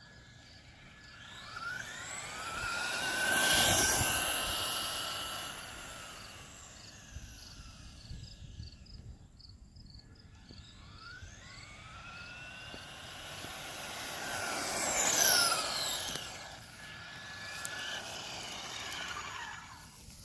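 Traxxas Bandit RC buggy's brushed electric motor and gears whining at full speed as it passes by twice, peaking about 4 and 15 seconds in, the pitch falling as it goes past each time. It is geared with a 31-tooth pinion for a top-speed run. Crickets chirp faintly in the first half.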